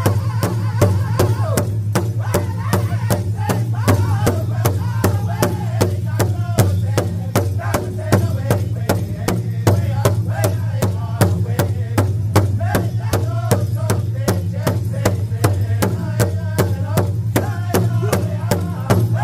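Powwow drum group singing together over the steady unison beat of a shared big drum, about two beats a second, with a steady low hum underneath.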